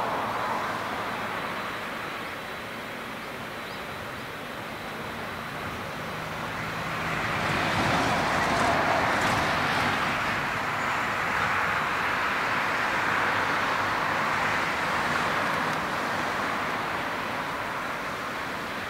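Boeing 777-300ER's twin GE90 turbofans at takeoff thrust, a broad jet roar that grows louder about eight seconds in as the airliner climbs away, then slowly fades.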